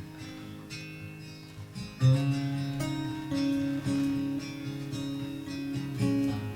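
Instrumental worship music led by a strummed acoustic guitar, with no singing yet. It gets clearly louder about two seconds in, when a low sustained note comes in under the strumming.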